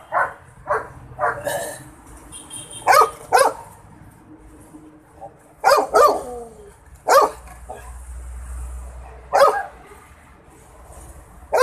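A dog barking repeatedly: about nine short barks at uneven gaps, several of them in quick pairs.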